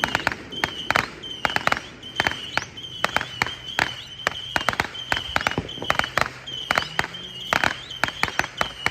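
Fireworks going off in a rapid run of sharp cracks and pops, several a second in uneven clusters, with short high chirps mixed in.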